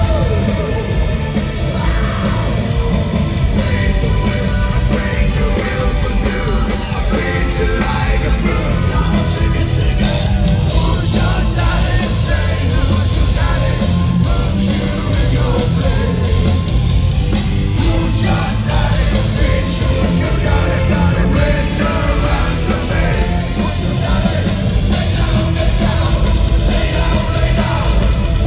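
Heavy metal band playing live and loud, with vocals over the full band, heard from the audience.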